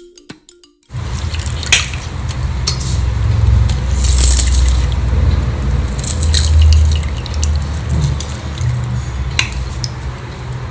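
A lemon squeezed with a hand-held metal lemon press over a steel pot of juice: juice dripping into the liquid, with a few clicks and knocks from the press, over a steady low rumble. Light music cuts off about a second in.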